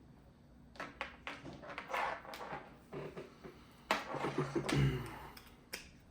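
Hands handling a desk lamp's power cable and plug: a string of irregular plastic clicks and knocks with rustling, and a dull thud near the end.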